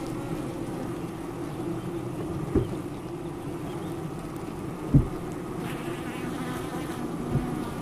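Honey bees buzzing in a steady low hum, broken by three dull knocks, the loudest about five seconds in.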